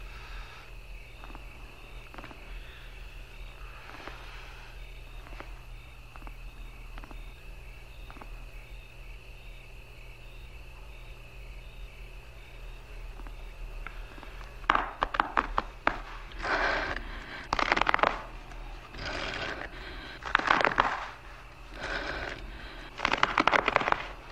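Fingernails scratching at stone: a quiet stretch of faint, scattered scratches under a thin, steady high tone, then, about two-thirds of the way in, a run of loud, rough scrapes, each half a second to a second long.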